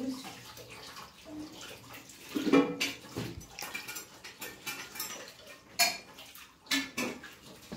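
Eating by hand from a steel plate: scattered sharp clinks and scrapes of fingers and food against the metal plate, about five in all.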